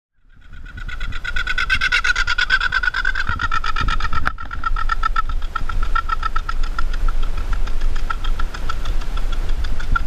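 A bird calling in a fast, even series of pulses at one middle pitch, kept up throughout and loudest in the first few seconds. Wind rumbles on the microphone underneath.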